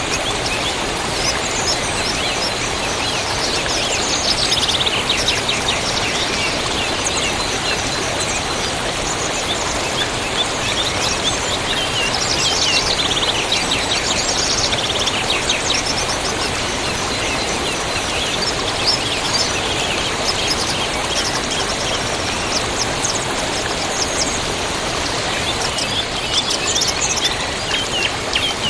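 River water flowing with a steady, even rush, while small songbirds chirp and trill over it in quick runs of repeated notes, busiest at a few points.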